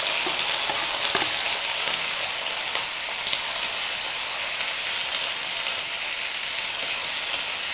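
Small raw prawns (chingri) sizzling steadily in hot oil in an aluminium kadai, with scattered sharp pops of spattering oil. A spatula stirs them, scraping against the pan.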